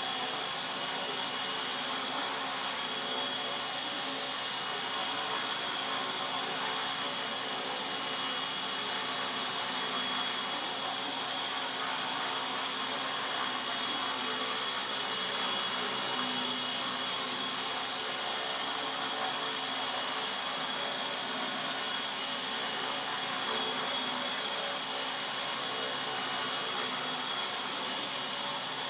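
Align T-Rex 450 SE electric RC helicopter hovering, its rotors and drive making a steady rushing sound with a steady high whine on top.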